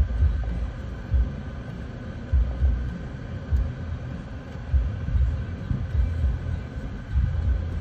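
Low, gusting rumble of wind buffeting the microphone at an open vehicle window, over the steady noise of the vehicle.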